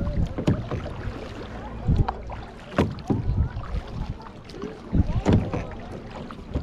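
Kayak paddle strokes, the blades splashing into and pulling through lake water in uneven strokes about a second apart, over a low rumble of wind on the microphone.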